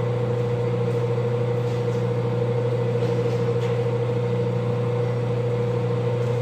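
Lathe motor running at a steady speed: a constant hum with a few faint light clicks.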